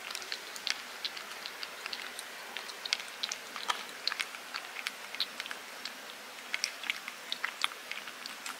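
Brown mackerel tabby cat licking a soft paste treat off a small plate: small, irregular wet clicks of the tongue, several a second. The cat is off its food and only licks at it a little.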